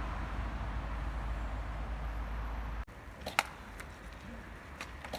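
Steady low rumble and hiss that cuts off abruptly about three seconds in, followed by quieter background with two sharp clacks.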